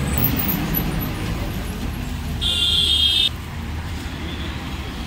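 Road traffic running past with a steady low rumble. About two and a half seconds in, a short high-pitched tone sounds for under a second and cuts off suddenly.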